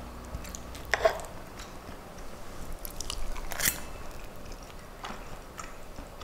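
A few light clicks and soft handling sounds from a metal fork clinking on a ceramic plate as pieces of a tortilla wrap are picked up. The sharpest click is about three and a half seconds in, with a smaller one about a second in.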